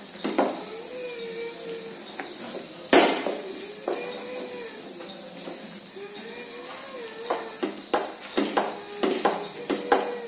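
Wooden spatula scraping and knocking against a nonstick frying pan as cooked vegetables are stirred and mashed. The strokes are irregular, with one sharp knock about three seconds in and a quicker run of strokes in the last few seconds.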